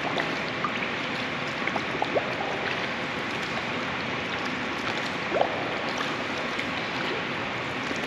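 Steady rush of pool water, with a few small splashes and bubbling as a swimmer exhales with her face in the water and lifts her head for breaths.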